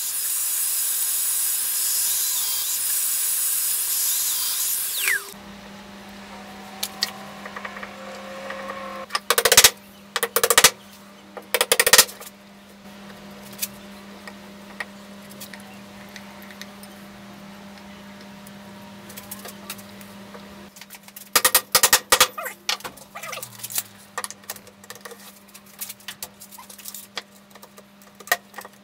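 Festool Domino DF 500 joiner running for about five seconds, plunge-cutting a mortise, with its dust extractor hose attached; it stops suddenly. Then a steady low hum with clusters of sharp wooden knocks and taps as chair parts and a clamp are handled.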